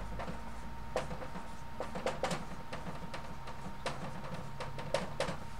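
Dry-erase marker writing on a whiteboard: a run of short, irregular taps and scratches as letters are written.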